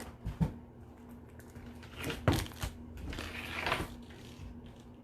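A cardboard shipping box being handled and opened: a few knocks and scratchy rustles of cardboard and packing.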